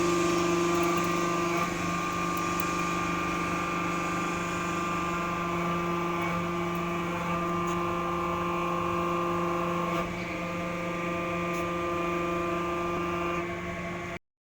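A scrap metal baler's electric motor and hydraulic pump running with a steady hum and whine of several constant tones, with a few faint clicks. The sound cuts off abruptly near the end.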